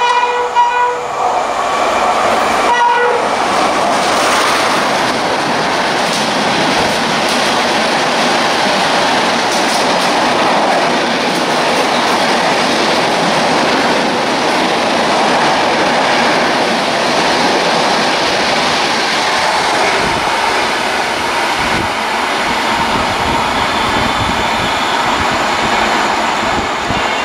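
A WAP-5 electric locomotive's horn sounds and ends about a second in, with one more short blast near three seconds. Then an express train passes at well over 100 km/h: a steady, loud rush of wheels on rails and the clatter of coaches over the track.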